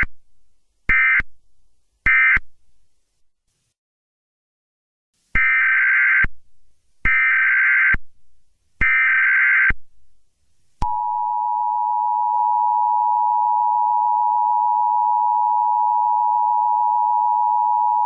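Emergency Alert System data bursts: three short screechy bursts, a pause, then three longer ones, followed about 11 seconds in by the steady two-tone EAS attention signal.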